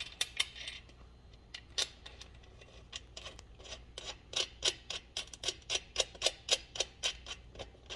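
A steel nut being spun by hand onto a bolt's threads, giving a run of light metallic ticks: a few scattered at first, then about three to four a second through the second half.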